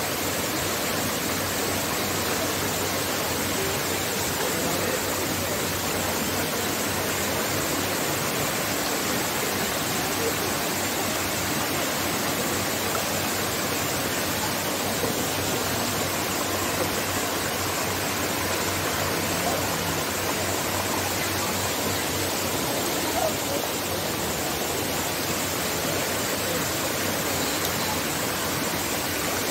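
Steady rush of flowing hot spring water, an even hiss that holds without a break.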